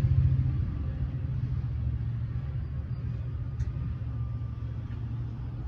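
Low diesel rumble of a passenger train's trailing EMD F59PHI locomotive moving away from the crossing, slowly fading.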